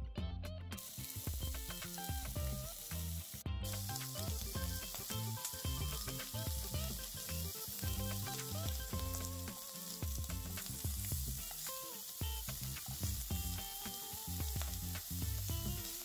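Slices of smoked pork butt sizzling as they fry in a pan, starting just under a second in and going on steadily, with background music underneath.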